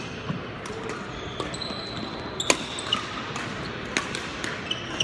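Badminton doubles rally: several sharp racket strikes on the shuttlecock, the loudest about two and a half seconds in, with short squeaks of court shoes on the wooden floor, in a large sports hall.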